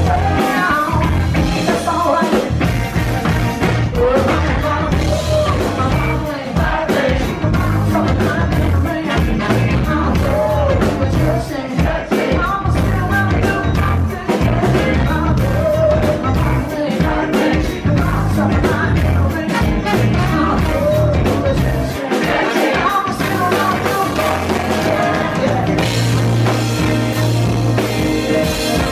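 Live rock band playing: a male lead singer with electric guitar over a drum kit, all played loud.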